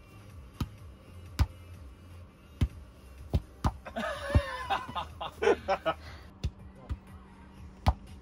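A football being kicked up and passed in the air with bare feet and knees: about eight dull thumps, irregularly spaced about a second apart. Brief laughter and voices come about four seconds in.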